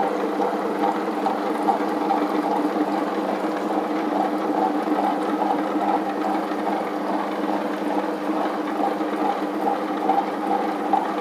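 Electric wet grinder running steadily, its stones turning through soaked parboiled rice that has been ground to a smooth, butter-like batter; the motor hum holds an even pitch, then cuts off abruptly.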